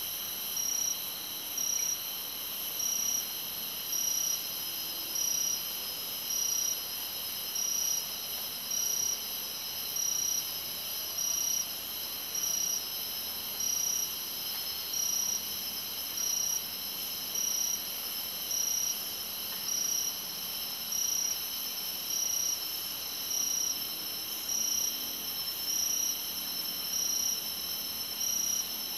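Jungle insect chorus: several steady, high-pitched insect drones at different pitches, with one insect calling in short, regular pulses about every second and a quarter.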